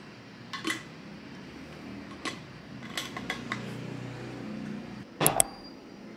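Insulated steel water bottle being handled, with several light clinks and taps, then a louder double knock about five seconds in as it is set down on the desk.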